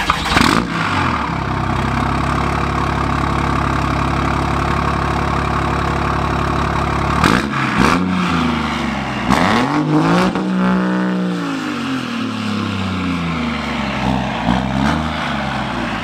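Dodge Ram's 6.7 Cummins turbo-diesel with a 5-inch exhaust and an upgraded turbo, starting up and idling. About seven seconds in it is given several short half revs, with one longer rev rising and falling at about ten seconds.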